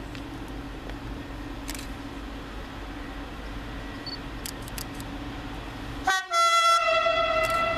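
Approaching locomotive rumbling steadily, then about six seconds in it sounds its horn: one loud held note that starts with a short blip and settles after a slight drop in pitch.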